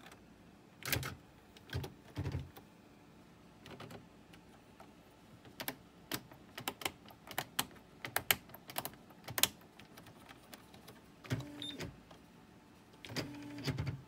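Brother CE-50 Correctronic daisy wheel electric typewriter printing keystroke by keystroke: sharp clacks of the print mechanism, three spaced apart at first, then a quicker run of strikes. Near the end come two short motor whirs from the machine.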